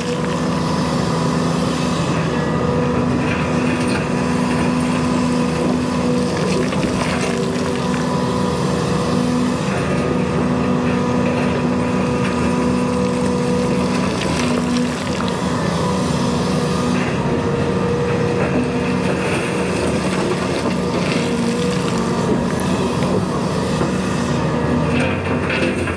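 Cat 335 Next Generation excavator's diesel engine and hydraulics running steadily as it works, a constant pitched hum with a few short knocks.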